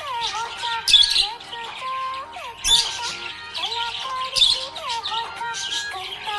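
Budgerigar chirping and warbling over background music: a gliding melody, with a strong beat about every second and three quarters.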